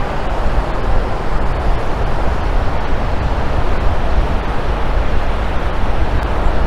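Steady wind and surf noise, with wind buffeting the microphone in an uneven low rumble.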